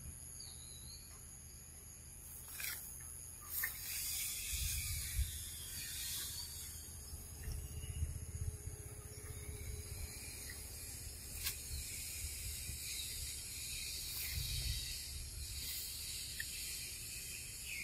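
Forest ambience: a steady high-pitched insect drone, with a few sharp clicks and rustles and patches of low rumble on the microphone.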